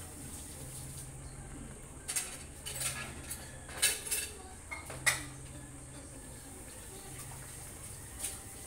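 Stew simmering in a pan covered by a glass lid on a gas stove, with a handful of sharp metal-and-glass clinks about two to five seconds in and one more near the end.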